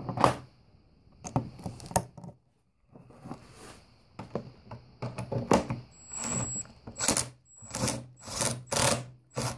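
Cordless impact driver, fitted with a socket on an extension, driving in the screws that hold a plastic cover on an ATV, in short trigger bursts. The bursts come several times, closest together over the last few seconds.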